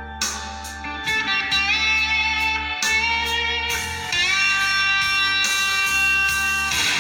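Recorded guitar music with bending electric-guitar notes over a strong bass line, played back through Cerwin Vega! SL-15 loudspeakers and picked up by a phone microphone. It gets louder and fuller about a second in and again after about four seconds.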